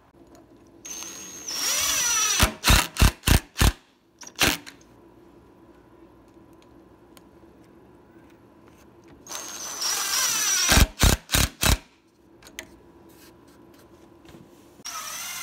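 Power drill boring countersunk pilot holes into a pine block. There are two runs, each whining and dropping in pitch as the bit bites, each followed by a few short trigger blips. A third run starts near the end.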